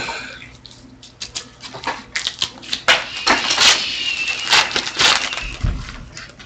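Foil trading-card pack wrapper crinkling and tearing as it is ripped open by hand, in a run of irregular crackles and rustles, with a dull thump near the end.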